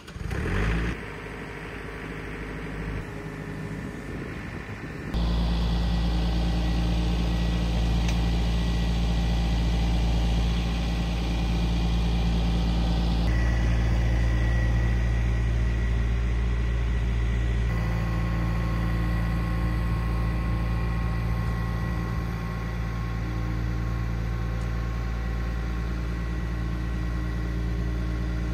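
John Deere 4044 compact tractor's diesel engine starting up and idling, then throttled up sharply about five seconds in and running steadily at higher revs as the tractor drives, easing back slightly later on.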